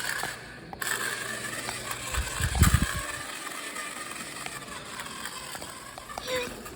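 Electric motor and drivetrain of an off-road RC car whining as it drives, with a few heavy thumps about two and a half seconds in.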